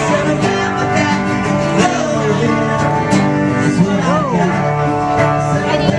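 A live band playing country-style music, with guitar prominent.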